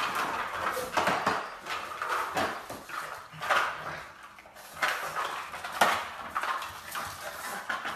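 Pug moving about on a hardwood floor: an uneven run of clicks and clatters, with short snuffling dog sounds in between.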